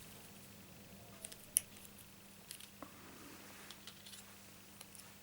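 Faint, scattered light clicks and taps of small punched cardstock petals being picked up and pressed down onto wet glue. The sharpest tick comes about one and a half seconds in.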